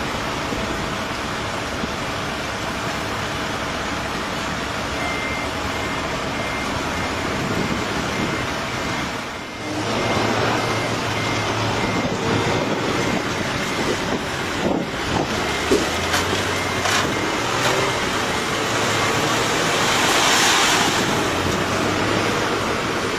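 Heavy vehicles running at a construction site, a steady engine and traffic rumble. A faint repeating high beep, like a reversing alarm, comes in about five seconds in and stops a few seconds before the end.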